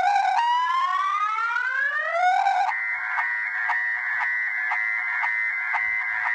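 Viper car alarm siren in panic mode, cycling through its tones. A slow rising whoop repeats, then a little over two seconds in it switches to a steady tone pulsed about three times a second.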